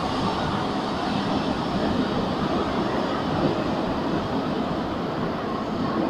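Tokyo Monorail 10000-series train running away down the tunnel from the underground platform just after departing: a steady rumble that eases slightly toward the end.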